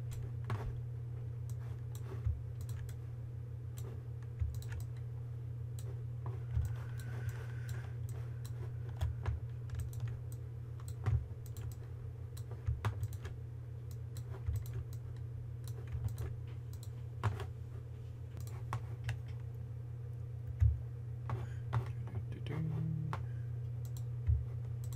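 Scattered clicks of a computer mouse and keyboard, irregular and a few a second at most, over a steady low electrical hum.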